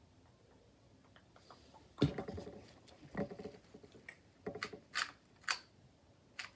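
Plastic 2x2 speed cube being handled and turned, a scattered series of sharp plastic clicks and knocks. The loudest is a knock with a short ring about two seconds in, and a run of quicker clicks follows in the second half.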